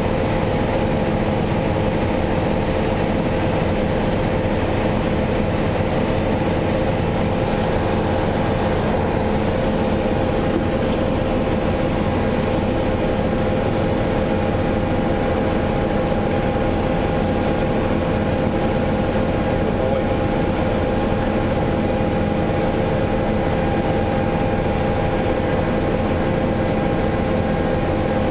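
Steady running noise of a car heard inside its cabin: an even rush with several constant hums and tones running through it, unchanging throughout.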